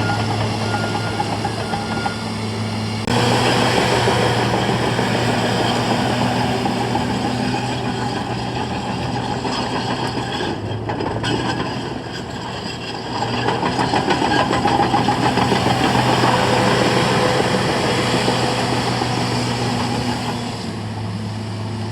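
Caterpillar 963C II track loader's diesel engine running, with its reversing alarm beeping for the first couple of seconds. About three seconds in the engine revs up and stays high, eases off briefly around the middle, revs up again, and settles back to idle near the end.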